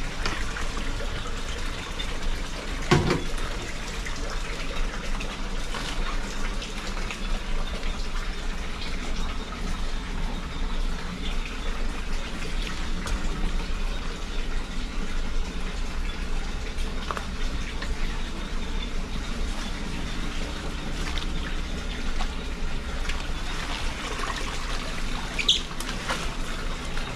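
Steady rush of water, with a single thump about three seconds in and a short sharp click near the end.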